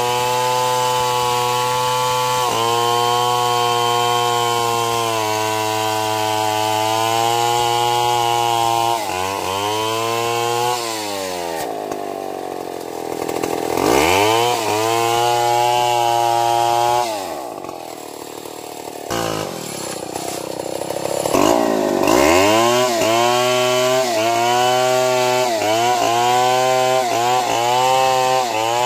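Large Stihl two-stroke chainsaw cutting through a felled log, holding a steady high engine note under load. In the middle it eases off and drops to idle for a few seconds, then goes back into the cut with the throttle opening and closing about once a second.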